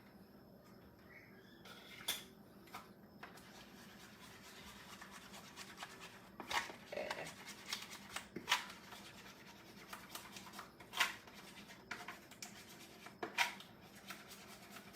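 Kitchen food-preparation handling: quiet rustling and scraping, with about half a dozen light, sharp knocks scattered through.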